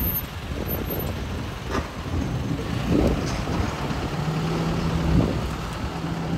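Cab-over stake-bed truck's engine running as the truck pulls away and drives past, a continuous low rumble with a steady low hum coming in about two-thirds of the way through.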